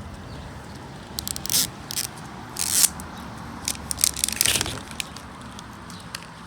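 Plastic packaging crinkling and being torn open by hand in several short bursts, loudest a little before the middle.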